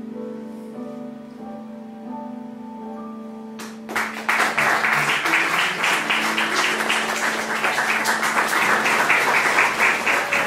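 Slow instrumental music with held notes; about four seconds in, a theatre audience starts applauding, much louder than the music, which keeps playing under the clapping.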